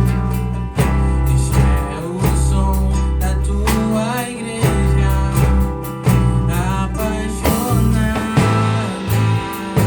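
A band playing a gospel song: a heavy bass line with notes changing every second or so, guitar, and regular hits, with a melody line bending in pitch over the top.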